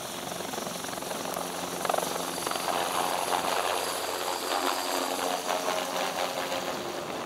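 Airbus H225 Super Puma rescue helicopter running, with rotor noise and a steady high turbine whine. The sound grows a little louder about two seconds in.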